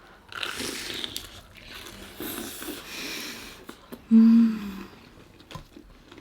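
Biting and tearing into crispy Jollibee Chickenjoy fried chicken close to the microphone, with crunching and chewing. About four seconds in comes a brief, louder hummed "mm".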